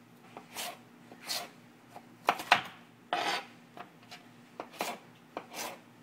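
A blade working through raw sweet potato by hand: short scraping strokes, roughly one a second, with two sharp knocks on the board about two and a half seconds in.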